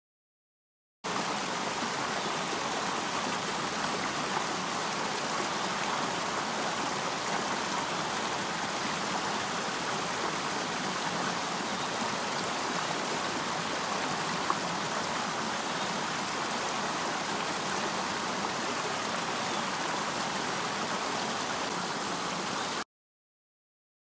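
Creek water pouring over a fallen log in a small cascade, a steady rushing and splashing. It starts suddenly about a second in and cuts off suddenly near the end.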